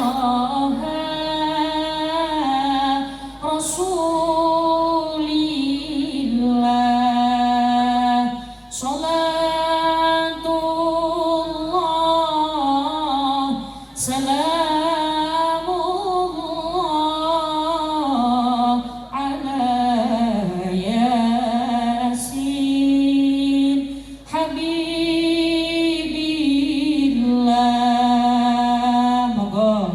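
A woman singing a sholawat, an Islamic devotional song praising the Prophet, with no instruments. She holds long, slowly wavering notes in phrases broken by short breaths every few seconds.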